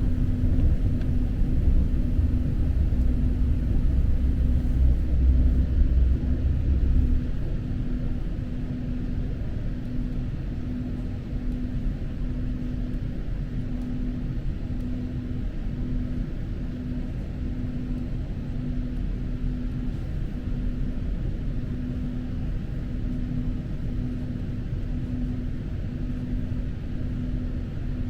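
Passenger train running, heard on board: a steady low rumble of the wheels on the rails, heavier for the first seven seconds or so and then easing, with a faint humming tone that pulses about once a second.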